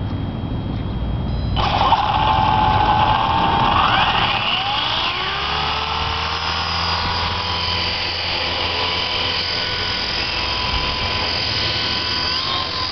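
Exceed RC Eagle 50 electric RC helicopter's upgraded brushed motor starting about a second and a half in, its whine rising in pitch as the rotor spools up, then holding a steady high whine.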